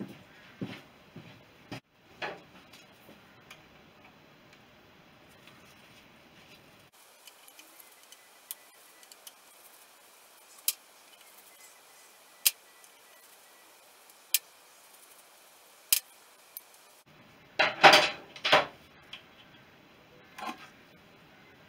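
Small metal clicks and clinks of hand tools and fittings as the rocker inspection cover is unscrewed from a BSA B31's cylinder head: sharp single clicks a couple of seconds apart, then a few louder clanks about 18 seconds in.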